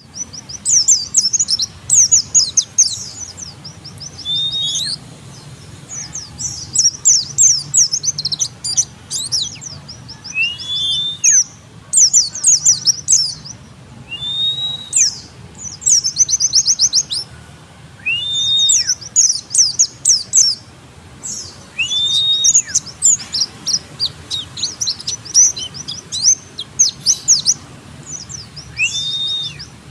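White-eye (pleci) song: fast, high runs of chirps and trills with a short arched call every few seconds, sung continuously, used as a lure call to make other white-eyes answer.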